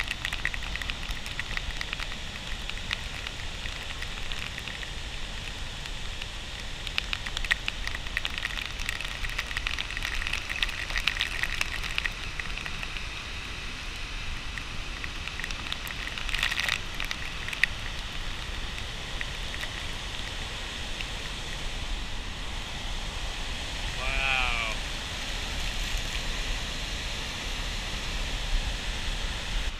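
Steady rush of Victoria Falls heard through heavy spray, with water droplets crackling and pattering on the microphone, thickest in the first twelve seconds and again around sixteen seconds. About three-quarters of the way through, a short pitched call sounds over it.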